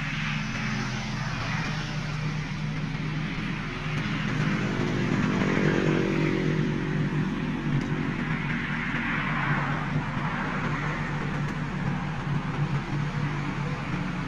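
A motor vehicle engine runs steadily. Between about four and eight seconds in, a louder engine sound swells, rises and falls in pitch, and fades, like a vehicle passing.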